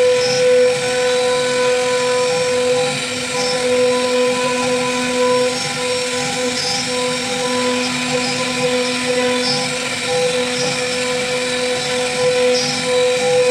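CNC router spindle carving a groove into a wooden plank: a steady whine from the spinning spindle over the noise of the bit cutting the wood.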